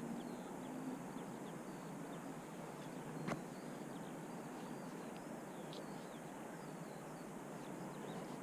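Quiet outdoor ambience: small birds chirping and twittering over a steady background hiss, with a single sharp click about three seconds in.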